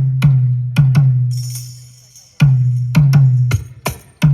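Bass-heavy DJ drum beat for a speaker sound check: deep kick drum hits with long, slowly fading low bass tails and sharp slap-like hits in between. About a second in, a hiss rises over the beat. It drops out briefly around two seconds in, then the beat comes back.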